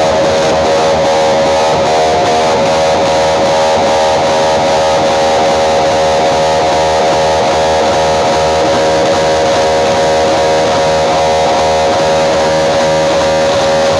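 Loud, guitar-led music played through a Thai outdoor-cinema (nang klang plaeng) sound system, running at a steady, unbroken level.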